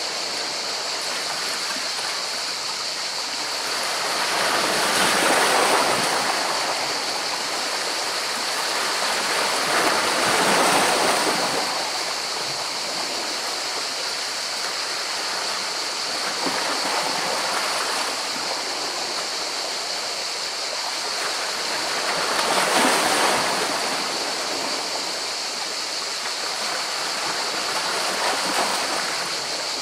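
Sea waves washing in among rocks: a steady rush of water, swelling four times as bigger waves break, each surge lasting a couple of seconds.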